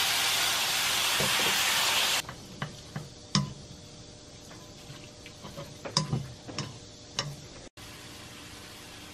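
Shrimp and tofu noodles sizzling in a hot pan, cut off abruptly about two seconds in. After that, chopsticks click and scrape against the pan as the noodles are stirred, a few sharp clicks at a time over a faint steady hiss.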